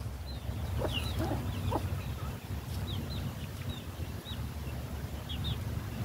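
Birds chirping: a run of short, high, falling chirps repeated throughout, with a few lower calls about a second in, over a steady low rumble.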